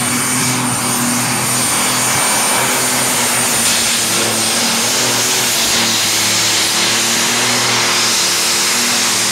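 Super stock pulling tractor's turbocharged diesel engine running at full throttle under heavy load as it drags the weight-transfer sled down the track. A loud, steady sound, with a high steady whistle over roughly the first half.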